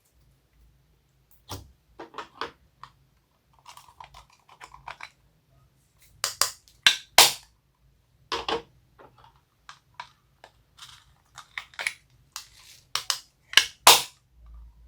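Homemade slime being squeezed and worked by hand, giving irregular sticky clicks, crackles and pops. The pops are loudest around the middle and again near the end.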